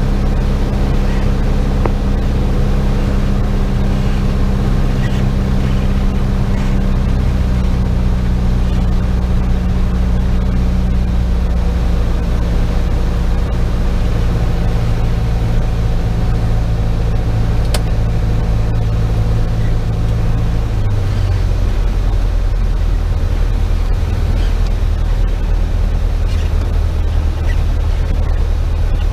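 Piper PA-28's single piston engine and propeller droning steadily, heard inside the cabin over the hiss of airflow. The engine note drops about seven seconds in and again, more clearly, about 21 seconds in, as power is taken off on final approach to land.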